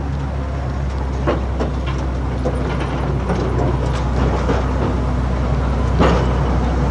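Train wheels rolling past at track level as the train sets off: a steady low rumble with scattered sharp clicks and clunks as the wheels cross the rail joints.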